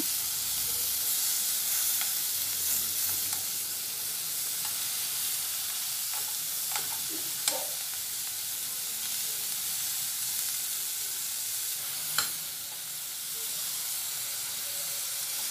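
Chili-marinated boneless chicken pieces sizzling steadily as they shallow-fry in oil in a nonstick pan, being turned over with a steel spoon. A few sharp clicks of the spoon on the pan come through the sizzle, the loudest about three quarters of the way through.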